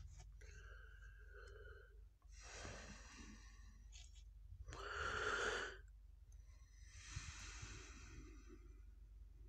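Soft breathing close to the microphone, four slow breaths about a second long each, the third the loudest, with light rustling and a few small clicks of comic-book paper pages being turned.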